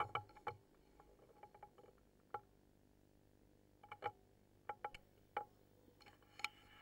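Faint, irregular sharp clicks and ticks, about a dozen scattered through, a few with a brief ringing tone, the clearest coming in a cluster after about four seconds.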